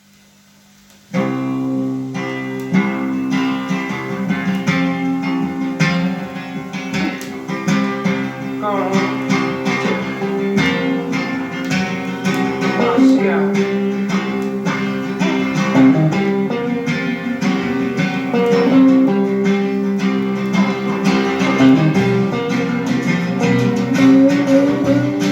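Guitar-led music that starts abruptly about a second in, with plucked and strummed guitar notes over a steady bass.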